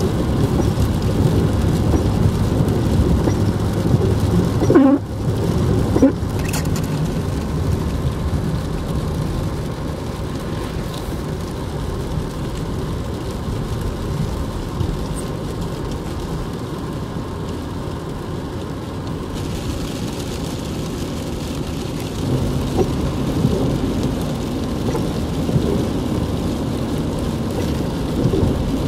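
BMW 7 Series E38 740 being driven, heard from inside the cabin: a steady low rumble of engine and road noise. It eases a little as the car slows and picks up again after about twenty seconds.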